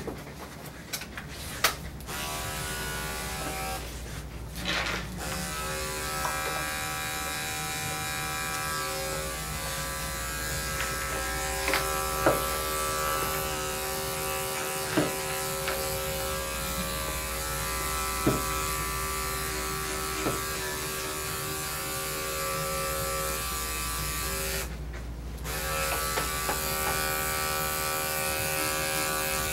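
Electric dog grooming clipper running with a steady motor hum as it clips the coat. It drops out briefly twice, shortly after it starts and again near the end, then starts again, with a few light clicks over it.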